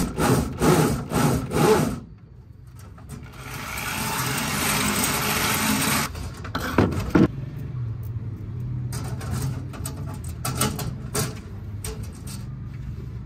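Corded electric drill boring a 5 mm hole through a thin aluminium sheet, running steadily for about three seconds. A couple of sharp metallic knocks follow, then light clicks of small metal parts being handled on the sheet.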